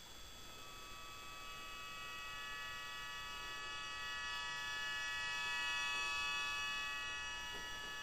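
Several sustained high tones at different pitches, layered and steady, that come in one after another, swell gradually to a peak about six seconds in and fade near the end.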